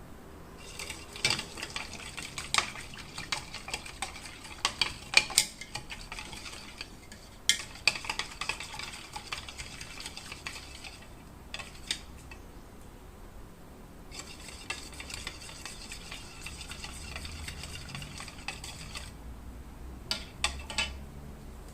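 Spoon stirring in a cup, scraping and clinking in three spells of several seconds each, with a few sharp taps near the end.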